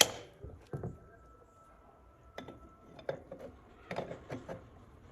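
Scattered metallic clinks and knocks of a large adjustable wrench being worked on a tractor's big wheel-hub nut, with a sharper knock at the start and a few more toward the end.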